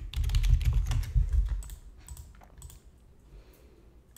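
Typing on a computer keyboard: a quick run of keystrokes with dull thuds for about the first second and a half, then a few scattered, quieter key clicks.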